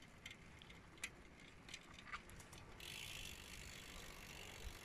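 Faint ticking of a touring trike's freewheel ratchet as it coasts, with a few light scattered clicks. A soft hiss joins about three seconds in.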